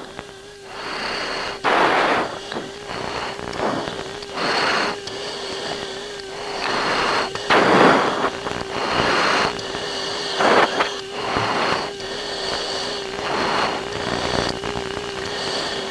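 Military air-to-air radio channel with no one talking: irregular bursts of static hiss, each about half a second to a second long, over a steady, slightly wavering hum.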